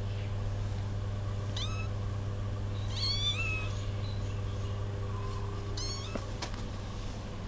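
One-month-old kittens mewing: three short, high-pitched mews about one and a half, three and six seconds in, the middle one the longest, over a steady low hum.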